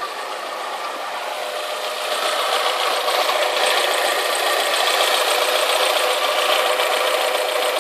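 Alfa Romeo 156 2.0 Twin Spark four-cylinder engine idling steadily, with a light 'pinking' tick still present that a new exhaust manifold and metal gasket have not fully cured. It grows louder about two seconds in.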